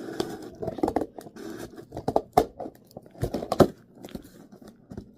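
Hands handling and opening a shipping package: scattered taps and knocks, about five sharp ones, over light rustling of the packaging.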